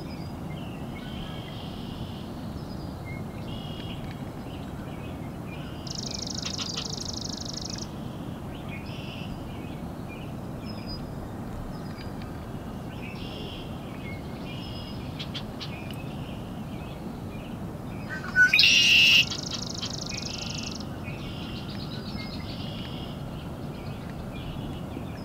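Small birds in a marsh calling over and over with short high notes. A buzzy trill comes about six seconds in, and a much louder harsh call about 18 seconds in, all over a steady low background noise.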